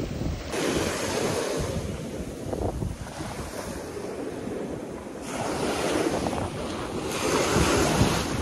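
Small waves breaking and washing up a sandy beach, surging several times, with wind buffeting the microphone.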